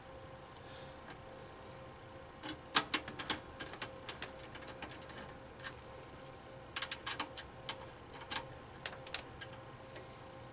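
Small sharp clicks and taps of a screwdriver and metal parts being handled while a hard drive is fitted into a desktop computer case. They come in two bunches, a few seconds in and again past the middle, over a faint steady hum.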